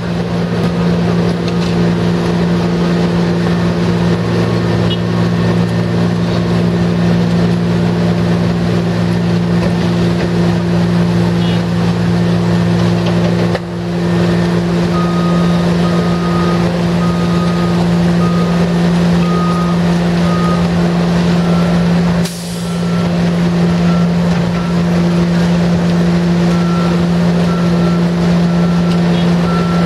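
A concrete mixer truck's diesel engine runs with a steady hum. About halfway through, a reversing alarm starts beeping about once a second.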